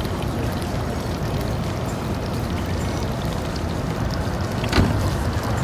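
Boat engine running at idle, a steady low rumble, with water splashing against the hull and a single knock near the end.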